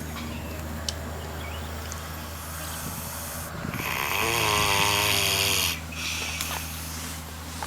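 Pig snoring in its sleep: one long snore starting about four seconds in and lasting nearly two seconds, over a steady low hum.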